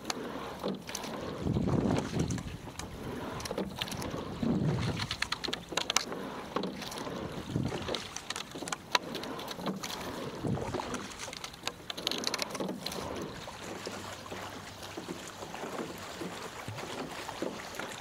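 Single scull being rowed: water rushing along the hull and splashing at the oar blades, with many short clicks and knocks from the rowing gear. Some wind noise on the microphone.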